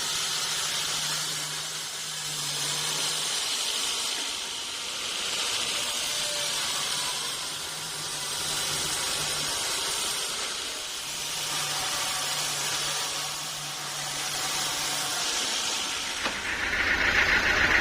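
Sawmill machinery running with a steady hiss that swells and fades about every four seconds, under a low hum that comes and goes. Near the end it grows louder and harsher.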